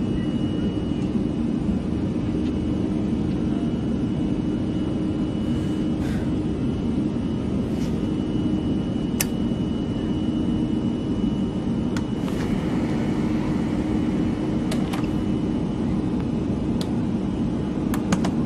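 Airliner cabin noise in flight: a steady low rumble heard from inside the cabin, with a faint high steady whine and a few faint clicks scattered through.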